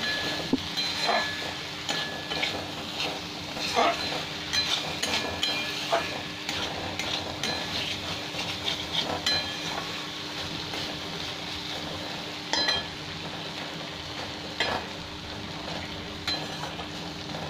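Diced potatoes and tomato sizzling in a metal kadai as a spatula stirs them, scraping and knocking against the pan every second or two. The stirring strokes thin out near the end, leaving mostly the frying sizzle.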